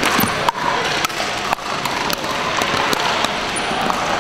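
Sharp pops of pickleball paddles hitting plastic balls, scattered irregularly across several courts in play, over a steady background din in a large gym hall.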